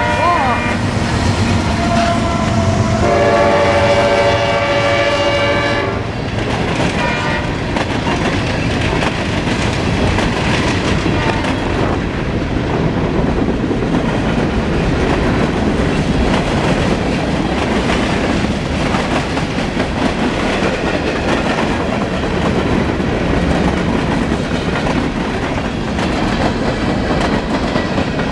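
Train horn blowing several blasts in the first six seconds, the longest about three seconds, followed by the steady rumble and wheel clatter of a train rolling past close by.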